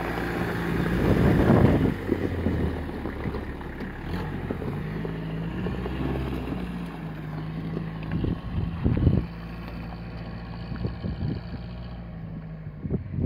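Toyota Hilux Mk3 pickup's engine running at low revs as it crawls along an off-road track, its note shifting slightly. Gusts of wind hit the microphone about a second in and again around nine seconds in.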